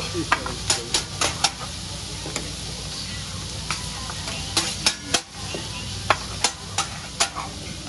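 Scallops, chicken, onions and vegetables sizzling steadily on a hot teppanyaki griddle, with sharp clacks of a metal spatula against the steel plate: a quick run of about five in the first second and a half, then more scattered ones from about four and a half seconds in.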